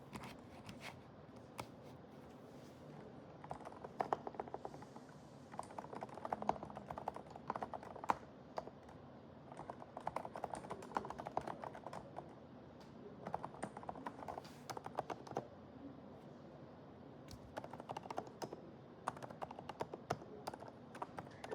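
Typing on a Groovestone computer keyboard: runs of quick keystrokes broken by short pauses.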